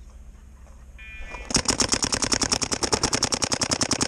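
Paintball marker firing in rapid, steady fire, about a dozen shots a second, starting suddenly about a second and a half in.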